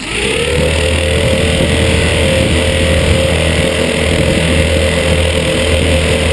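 FPV quadcopter's brushless motors and propellers starting up suddenly, rising in pitch for a moment, then spinning at a steady idle with the drone still on the ground. Heard close up through the drone's own onboard camera.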